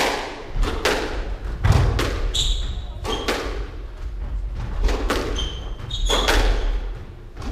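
A squash rally: the ball knocking sharply off racquets, the walls and the wooden floor about once or twice a second, ringing briefly in the enclosed court. Players' footsteps thud underneath, with a few short high squeaks of shoes on the floor.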